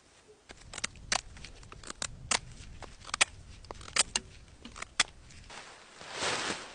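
Dry sticks and brush being handled: a string of sharp, irregular snaps and cracks, then a brief rustling swish near the end.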